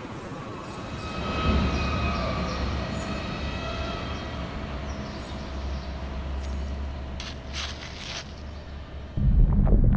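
Steady low rumble with thin, sustained squealing tones above it. About nine seconds in it cuts abruptly to a louder, duller rumble.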